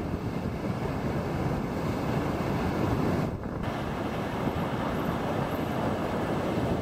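Wind buffeting the microphone over the steady wash of surf breaking on the beach, with a brief dip a little past halfway.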